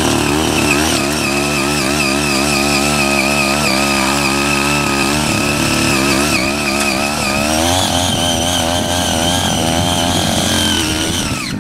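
5 hp engine of a CY80 walk-behind power tiller running while its six rotary tilling blades work through weeds. The engine note wavers throughout, rises to a higher, steadier pitch about two-thirds of the way in, and cuts off suddenly at the end.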